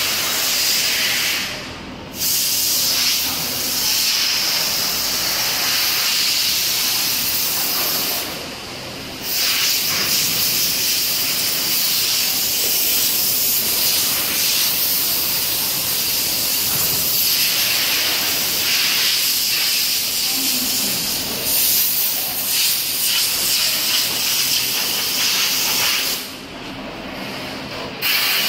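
Fiber laser cutting machines running, their assist-gas jets giving a loud, steady hiss. The hiss cuts off briefly three times: about 2 seconds in, around 9 seconds, and near the end for a couple of seconds.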